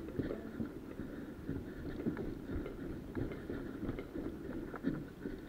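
Footsteps of a person walking on a concrete floor: soft, irregular thuds.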